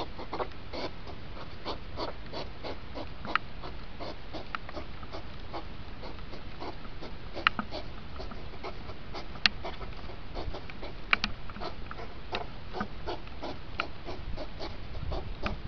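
Hedgehogs in the rut, huffing and snorting in courtship: a dense, irregular run of short snorts and clicks over a steady hiss. A few sharper clicks stand out, about 3, 7.5, 9.5 and 11 seconds in.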